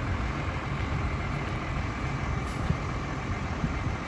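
New Holland tractor's diesel engine running steadily as it pulls a stuck truck out of the mud.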